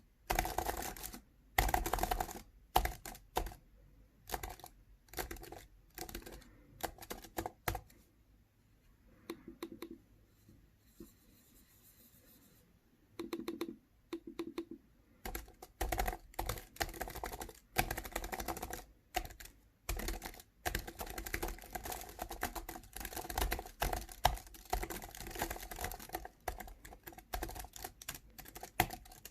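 Typing on a computer keyboard, keys clacking in quick runs. The typing stops for several seconds about a third of the way in, with only a few soft sounds, then resumes fast and steady.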